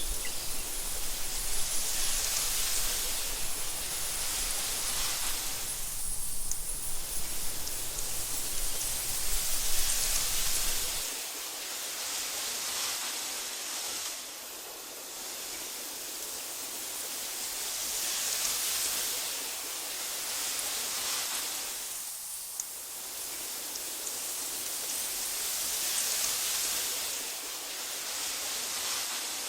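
Wind blowing through tall meadow grass, a steady hiss that rises and falls in slow gusts about every eight seconds. A low rumble underneath cuts off suddenly about a third of the way in.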